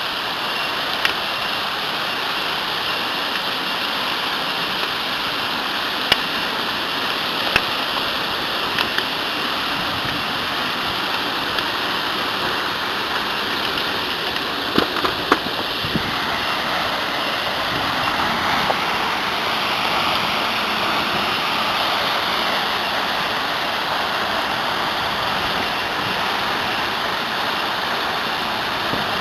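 Waterfall running: a steady rush of falling water, swelling slightly past the middle, with a few short sharp clicks scattered through it.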